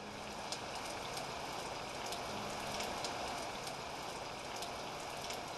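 Steady rain: an even hiss dotted with the ticks of single drops.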